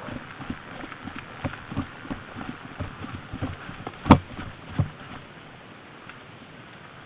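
Footsteps of a player moving, about two to three knocks a second, with one much louder knock about four seconds in; the steps stop about five seconds in.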